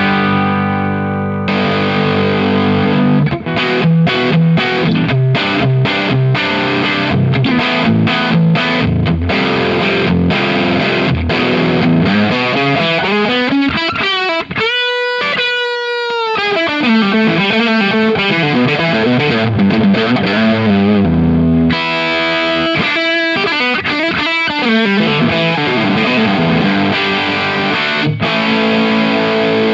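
Electric guitar on its bridge pickup through a Fender Deluxe Reverb amp pushed into light overdrive, playing chords and riffs. About halfway through, a single long note rings out and bends in pitch before the chords return.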